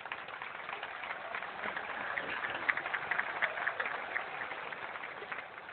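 A large crowd applauding, a dense patter of many hands that builds through the middle and eases off near the end.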